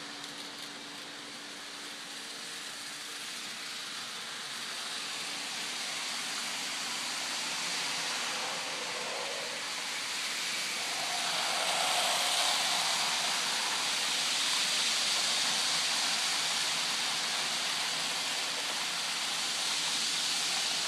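N scale model train running on its track: a steady rushing whir of small wheels on rail and its motor. It grows louder about midway as the train passes close by.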